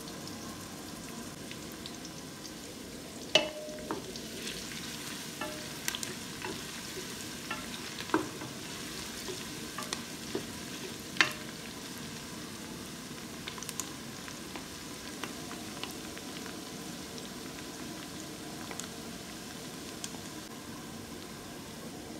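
Chopped onions sizzling steadily in hot oil in a metal pressure cooker pot while a wooden spoon stirs them. The spoon knocks sharply against the pot now and then, most loudly about three, eight and eleven seconds in.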